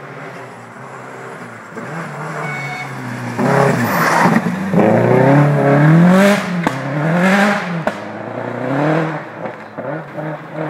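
Rally car coming flat out along a gravel forest stage and passing close by. Its engine revs hard, the pitch climbing and dropping several times, with two sharp cracks as it goes past. It then fades as the car drives away.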